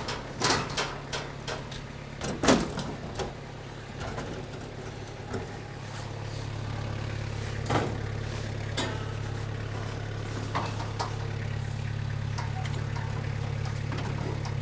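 Mini track loader's engine idling steadily, a little louder from about halfway in, with sharp knocks and clunks from a tall cyclone dust collector being rocked and shoved across a concrete floor, thickest in the first few seconds.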